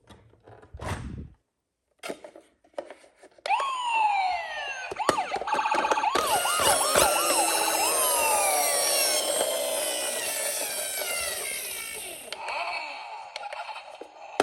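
Several police and ambulance sirens sounding at once: overlapping wailing pitch glides with quick warbling yelps. They start about three and a half seconds in and thin out near the end.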